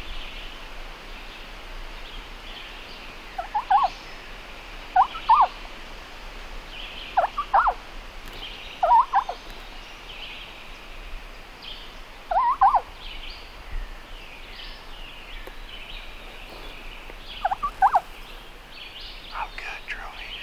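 Eastern wild turkey gobbler gobbling over and over: about six short, loud gobbles spaced roughly one and a half to five seconds apart.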